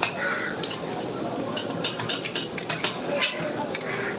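Metal kitchen utensils clinking against a cooking pot, a run of light, irregular taps and clinks.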